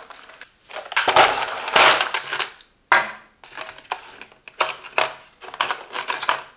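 Steel sockets and bits rattling in a plastic socket-set case as it is slid about, then a run of sharp clicks as bits are pulled from the case's plastic holders.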